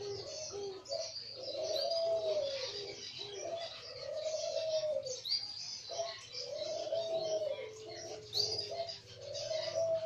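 Caged puter doves cooing: long, arching coos about a second each, repeating every two to three seconds, with shorter coo notes in between. Other birds chirp throughout, with a thin rising chirp three times.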